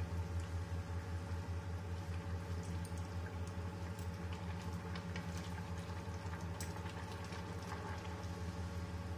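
A steady low electrical hum with a fast flutter, with faint scattered taps and scrapes of a spatula stirring vegetables in a simmering coconut-milk stew in a wok.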